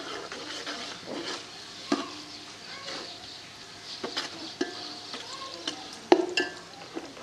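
Sliced onions sizzling in hot oil in a metal pot, fried toward golden, while a metal ladle stirs them, scraping and clinking against the pot about nine times. The loudest clink comes about six seconds in.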